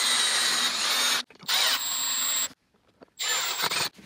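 Power drill running in three bursts, drilling through a white PVC tee fitting and then driving a screw through the tee into a plastic bucket: a long run that stops just over a second in, a second run of about a second, and a short final run near the end.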